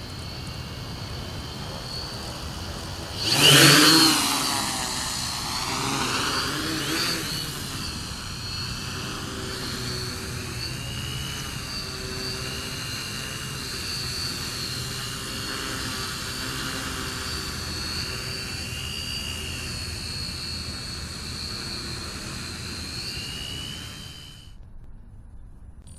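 Small quadcopter's four brushless motors spinning 11-inch propellers: a steady buzzing whine that swells sharply about three and a half seconds in as the throttle comes up, then holds with its pitch wavering as the motors adjust. It cuts off suddenly near the end.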